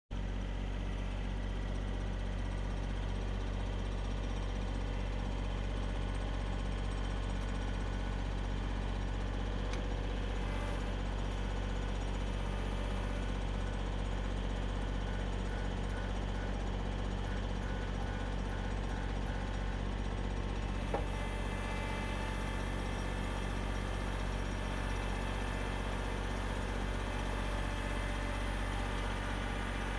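Kubota L-series compact tractor's diesel engine idling steadily, with one light click about two-thirds of the way through.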